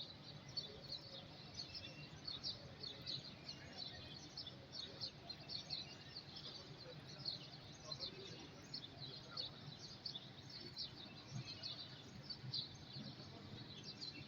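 Small birds chirping continuously, many short quick chirps overlapping, over low steady outdoor background noise.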